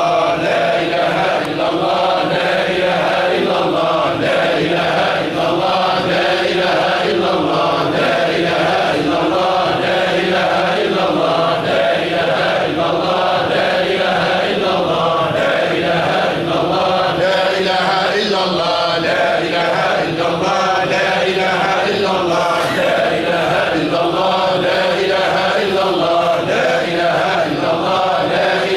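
A congregation of men chanting Sufi dhikr in unison, one short phrase of God's remembrance repeated over and over, about once a second, at a steady pace.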